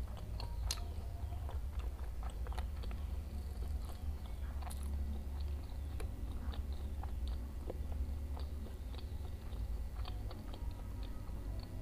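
Chewing, with many small wet mouth clicks and smacks, while eating fried tofu and tempeh with sambal and fresh vegetables, over a steady low hum.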